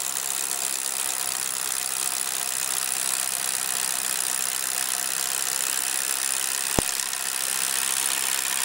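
Corded hammer drill boring into a concrete pier with a masonry bit: a steady hammering whir, with one short sharp click about two-thirds of the way through.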